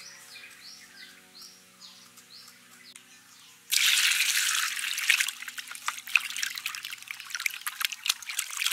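Water poured into a bowl of peeled sapodilla fruit, starting suddenly about a third of the way in and loudest for the first second, then hands sloshing and rubbing the fruit in the water with irregular splashes.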